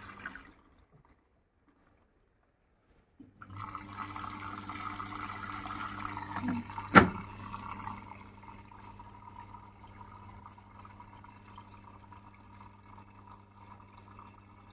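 A Bosch front-loading washing machine taking in water at the start of a wash: after a few seconds of silence, a steady rush of water with a low machine hum. A single sharp click about seven seconds in, then the flow goes on more quietly.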